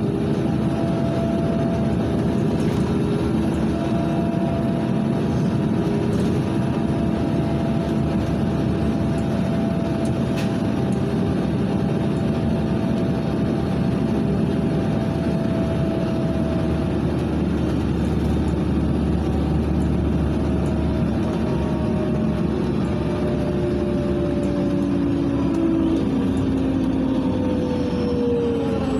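Inside a LiAZ 5292.67 city bus under way: steady engine and road noise with a whining tone. Over the last several seconds the whine falls in pitch as the bus slows.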